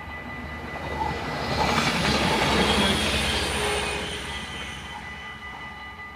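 LINT 41 diesel multiple unit passing over a level crossing: its engine and wheel noise swells to a peak about two to three seconds in, then fades. The crossing's warning bells ring steadily throughout.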